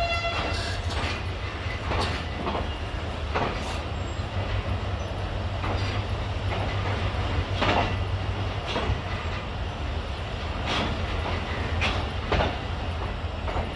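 Passenger train pulling slowly out of a station, heard from on board: a steady low rumble with irregular clanks and clicks from the wheels and coaches every second or two.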